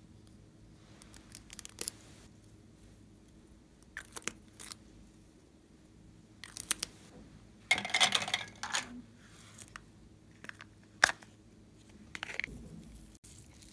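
Small plastic glitter tubes and a sequin box handled close up: scattered sharp clicks of caps and plastic, with a dense burst of rattling and pattering about eight seconds in as glitter is shaken out over slime.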